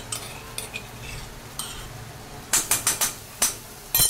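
Chopped onions and ginger-garlic paste sizzling in hot oil in a steel kadai. A wooden spatula knocks and scrapes against the pan several times in quick succession about two and a half seconds in, and again near the end.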